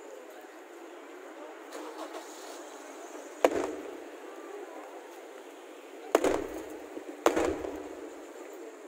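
Aerial fireworks shells bursting: three loud bangs, one about a third of the way in and two about a second apart near the end, each trailing off in a short rumbling decay over steady background noise.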